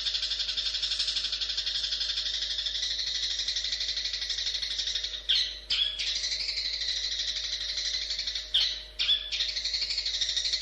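Long-tailed shrike (cendet) singing a fast, continuous chattering song. It breaks off twice for a moment with short, louder notes.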